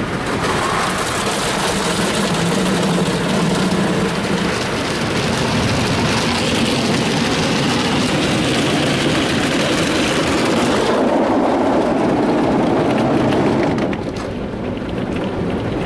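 Ryko Softgloss Maxx rollover car wash working over a pickup, heard from inside the cab: a steady rush of water spray and brushes against the body and windows, with a low hum in the first few seconds. The hiss eases about eleven seconds in, and the whole sound drops a little near the end.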